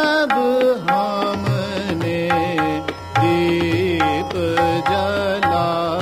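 Hindustani classical singing in raag Hansadhwani: a voice holding and gliding between ornamented notes, over tabla strokes and a tanpura drone.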